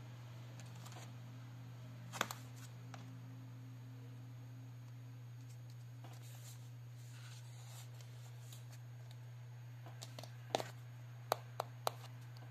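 Cardboard phone box handled and turned over in the hands: faint rubbing and rustling, with one sharp tap about two seconds in and a quick run of four or five sharp taps near the end, over a steady low hum.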